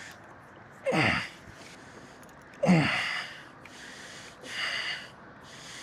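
A man breathing hard while straining against a hooked fish: three forceful exhalations about two seconds apart, the first two opening with a short falling grunt.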